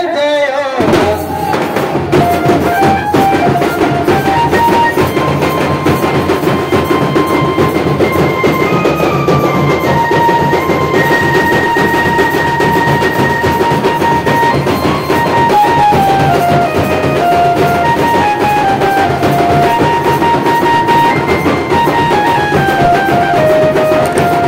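A group of large double-headed drums beaten with sticks in a fast, dense rhythm, starting about a second in, with a melody of held notes played over it.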